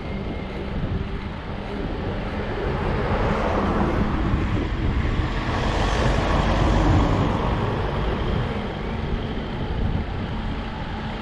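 Wind rushing over a bike-mounted GoPro 7 microphone while cycling, with a steady low rumble of tyre and road noise; it swells briefly around the middle.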